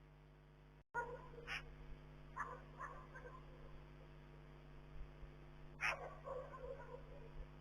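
A few short, sharp animal calls, three of them loudest, with softer calls trailing after each, heard over a steady electrical hum; the sound cuts out briefly about a second in, just before the calls start.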